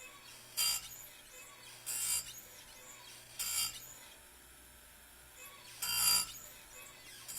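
Oregon bench chainsaw-chain grinder taking down the rakers (depth gauges) on a saw chain: four short grinding bursts as the wheel is dipped onto the chain, over the low steady hum of the grinder motor.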